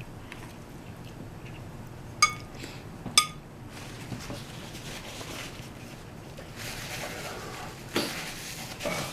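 Two sharp clinks of a utensil against a dish, about a second apart, each with a short ringing tone. Later comes a softer stretch of hissing, scraping eating noise.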